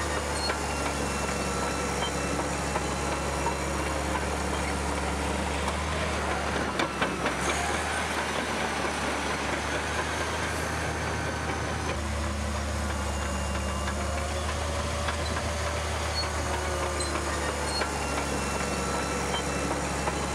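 Caterpillar bulldozer's diesel engine running steadily, with a short cluster of knocks about seven seconds in and a change in the engine note about twelve seconds in.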